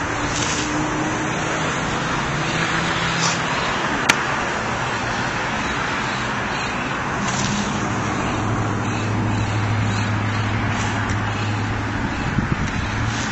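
Steady road-traffic noise from passing cars, with an engine hum growing stronger in the second half. A single sharp click about four seconds in.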